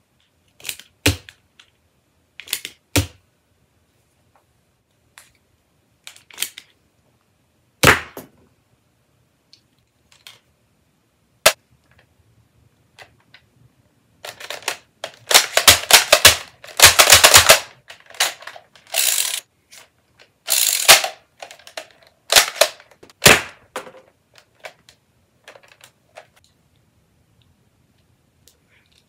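Plastic Nerf dart pistols being loaded and primed, clicking and clacking. There are scattered single clacks at first, then a dense run of loud clacks and rattles for a few seconds in the middle while an orange-cylinder revolver is handled.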